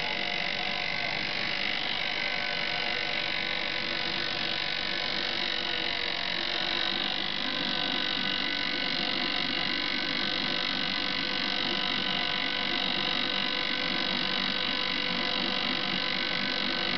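Electric winch on a homemade cart running steadily under load, reeling in its cable to drag the rock-laden cart along the ground: a steady whining hum.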